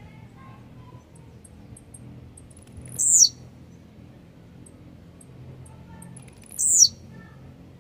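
Blue-black grassquit (tiziu) singing: two short, high notes, each sliding down in pitch and lasting about a third of a second, some three and a half seconds apart. The second comes as the bird leaps and flaps up off its perch, the jump display that goes with its song.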